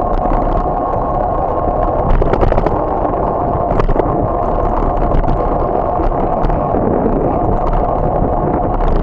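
Steady wind rush on the microphone and road rumble from a bicycle riding along a cracked asphalt street, with brief rattling clicks about two seconds in and again near four seconds.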